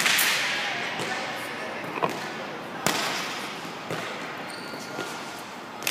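Volleyballs thudding in a volleyball setting drill: balls struck by hands and bouncing on the indoor court. A loud echoing smack comes first, then lighter thuds about a second apart.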